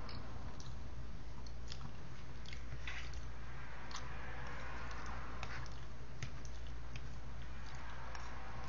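A person chewing and biting food close to the microphone, with scattered small clicks and wet mouth sounds, over a steady low hum.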